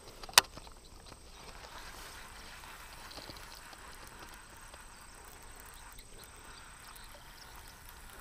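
Faint outdoor ambience with a thin steady high tone, and a single sharp click about half a second in.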